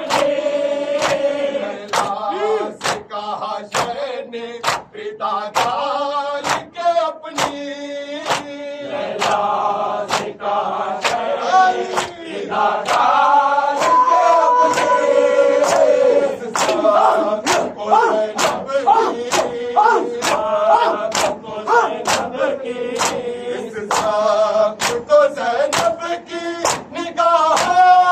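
Male mourners chanting a nauha (Urdu lament) in unison over the crack of matam: open palms striking bare chests together in a regular beat.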